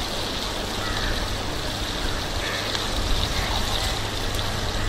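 Whole fish shallow-frying in oil in a wide iron pan, a steady sizzle, with one brief knock about three seconds in as the cook's spoon or spatula meets the pan.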